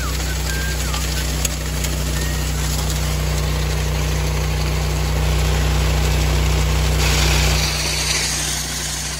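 Truck engine running steadily with a low hum; about seven and a half seconds in the hum eases and a rushing hiss comes up.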